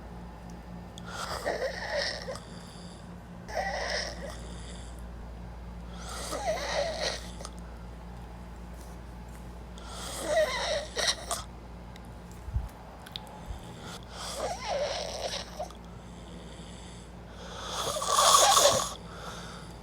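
A person snoring: about six loud, rasping snores every three to four seconds, the last one the loudest.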